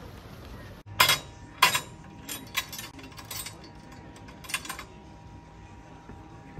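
A railway lever frame being worked by hand: two sharp metal clanks about a second in, then lighter clicks and rattles from the levers and their catches.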